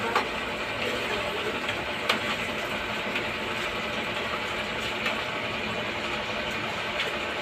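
A ladle stirring thick champorado in a stainless-steel pot, with a few light clinks of the ladle against the pot, the clearest just after the start and about two seconds in, over a steady background hum.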